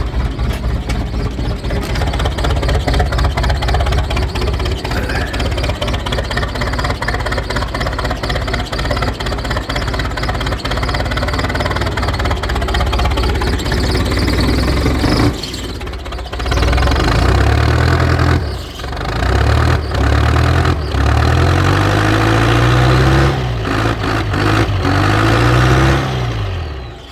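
John Deere 4219T four-cylinder diesel engine of a 1978 John Deere 310A backhoe, running cold just after a start without glow plugs or ether. For about fifteen seconds it runs steadily with a rapid diesel clatter. Then it is revved up and down several times, its pitch rising and falling with each rev.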